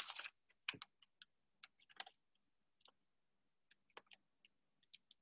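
Near silence broken by faint, scattered single clicks and light taps, with a short soft rustle at the start.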